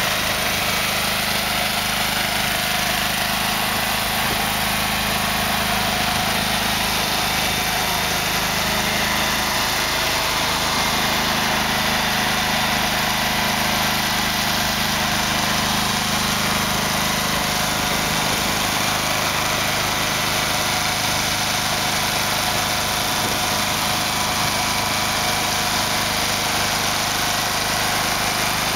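Engine of a Goldhofer self-propelled modular trailer running steadily at low speed, a constant drone that shifts slightly in pitch about ten seconds in as the heavy load moves.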